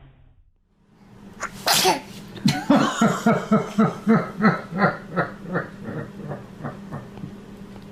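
A single sneeze about a second and a half in, then a long run of rhythmic laughter, about three bursts a second, fading toward the end.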